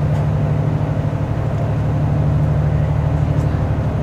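The cruise boat's engine running steadily, a constant low drone heard from inside the passenger cabin.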